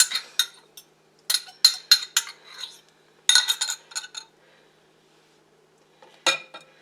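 Eggs being beaten with a metal utensil in a measuring cup: quick clinks against the cup, about three a second, in short runs, pausing for a second or so before a couple more knocks near the end.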